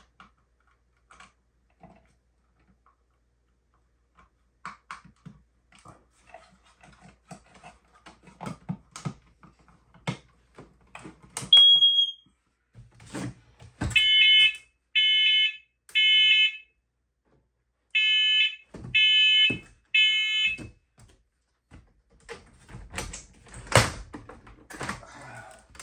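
Ceiling smoke alarm being tested after a battery change, its test showing it works. First come clicks and rattles as the detector is handled, then a single short chirp. Then comes the loud alarm in two groups of three beeps with a pause between them. Handling knocks and a thump follow near the end.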